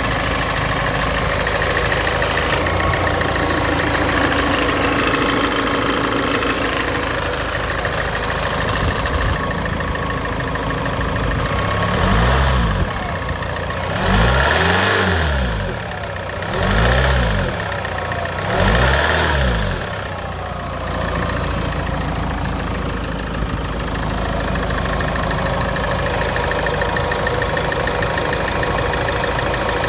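Land Rover Freelander 2 TD2.2 diesel engine running from cold, with an extraneous noise that shows up on a cold engine. It idles steadily and is revved up and let fall back four times in quick succession in the middle.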